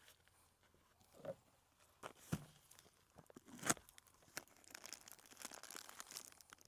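Faint handling of papery seedling pots being pulled apart: three light knocks, the sharpest just past the middle, then soft tearing and crinkling.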